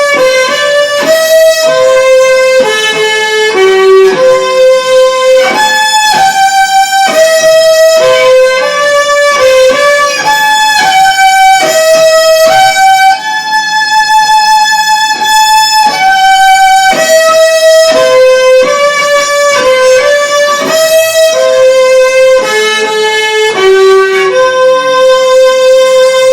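Solo violin playing a slow melody, one held note at a time.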